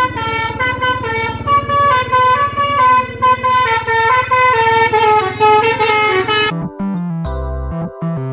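Basuri-style telolet bus horn playing a multi-tone melody that steps up and down in pitch, over a low pulsing rumble. It cuts off about six and a half seconds in, and electric keyboard music follows.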